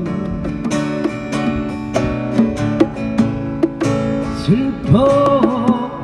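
Acoustic guitar strumming chords to accompany a song. A gliding, wavering melodic line joins it about four and a half seconds in.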